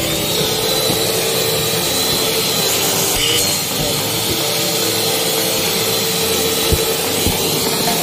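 Electric vacuum cleaner running steadily with a thin high whine, its hose nozzle sucking along a car's rear parcel shelf and seat back. A couple of light knocks near the end.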